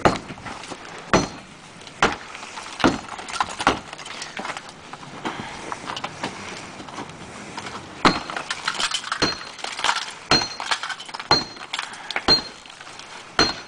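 A hand tool striking and breaking through a concrete block wall: sharp blows about once a second, a quicker run of knocks and clatter a little past the middle, then further single blows. Many of the later strikes leave a short high metallic ring.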